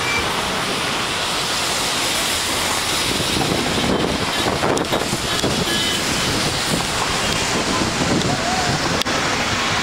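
Strong monsoon wind and rain making a steady rushing noise, with gusts buffeting the microphone.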